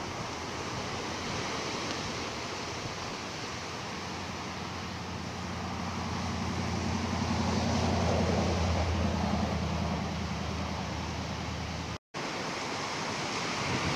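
Ocean surf breaking, with wind buffeting the microphone. A low steady drone swells in the middle and fades again, and the sound cuts out completely for a moment near the end.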